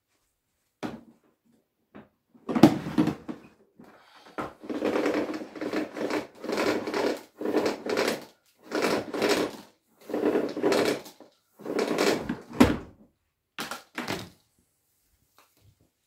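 Power cord being pulled out of the Samsung VW9000 canister vacuum's retractable cord reel in about a dozen short pulls with brief pauses between them.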